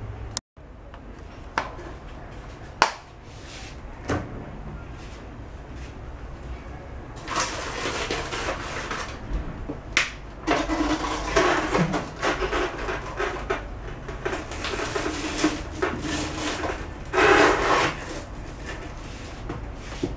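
Rustling and scraping from hands rummaging in a fridge's small freezer compartment, with a few sharp knocks and clicks; the rustling comes in long spells over the second half.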